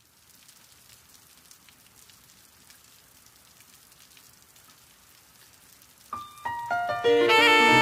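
Faint, steady patter of rain. About six seconds in, instrumental music starts with a run of single notes, one after another, and near the end it swells into a much louder, fuller passage.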